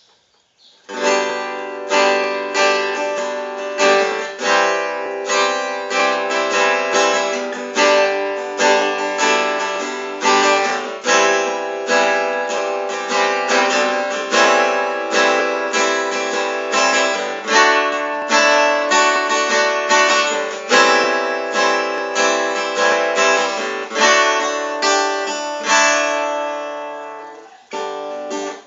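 Giannini GF-4 CEQ WS jumbo steel-string acoustic guitar being strummed and picked, with ringing chords and a new stroke about every half second. Playing starts about a second in and breaks off briefly near the end.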